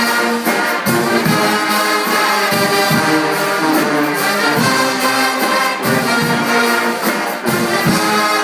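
Guggenmusik band playing: massed brass (trumpets, trombones and sousaphones) in a loud, brassy tune over bass drums and snare drums beating a steady rhythm.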